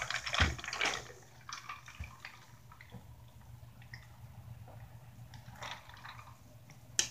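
A person drinking soda from a tumbler: soft sips and swallows, with a few small clicks and knocks of the cup and a sharper click near the end.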